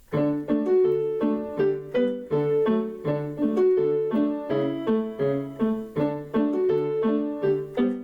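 Background piano music: a lively tune of short, evenly paced notes over a recurring low bass note.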